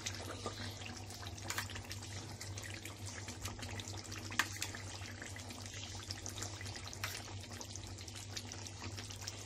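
A spoon clicking a few times against a metal kadai as cream is spooned into hot chicken gravy, over a faint steady hiss and a low hum.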